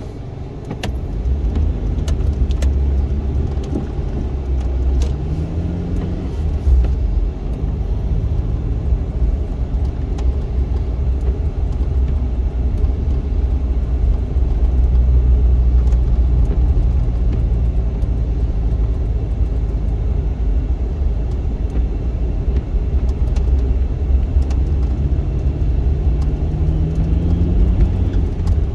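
Inside the cabin of a 2001 Suzuki Swift with its 1.3-litre four-cylinder engine, the engine and tyres rumble steadily as the car drives on a snow-covered road. The sound grows louder about a second in as the car gets going. The engine note rises twice, about five seconds in and again near the end.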